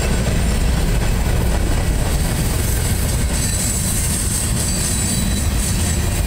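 Freight train cars, mostly covered hoppers, rolling past: a steady rumble of steel wheels on rail.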